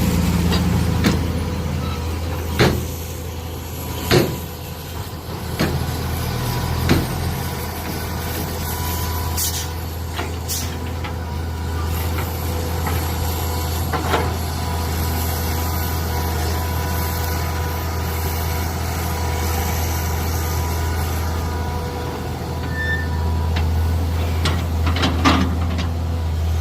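Mini excavator engine running steadily under work, with sharp knocks and clanks now and then.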